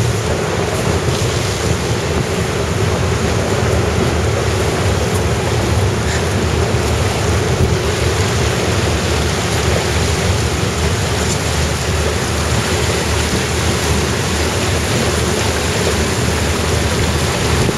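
Steady rushing noise of a train running through floodwater over submerged tracks, with wind buffeting the microphone.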